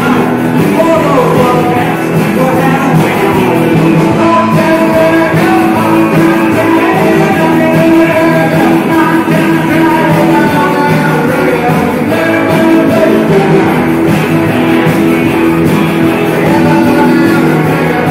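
Rock and roll music with guitar and a singing voice, playing loud and steady throughout.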